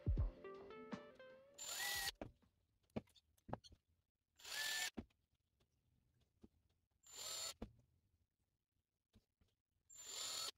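Ryobi ONE+ cordless drill run in four short bursts of about half a second each, spaced a few seconds apart, spinning a short wire held in its chuck into a carved wooden lure body. Faint clicks of handling come between the bursts.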